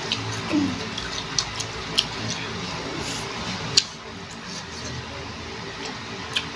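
Chewing crisp unripe mango, with scattered sharp crunches and wet mouth clicks; the loudest click comes a little under four seconds in.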